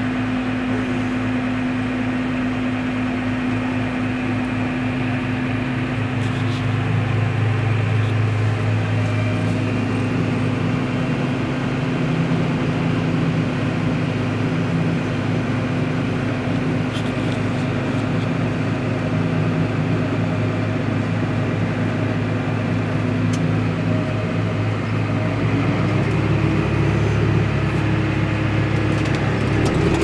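Steady drone of diesel farm machinery heard from inside a tractor cab, with a Case IH 1660 combine harvesting corn close alongside. About 26 seconds in, the engine note steps up in pitch and gets a little louder.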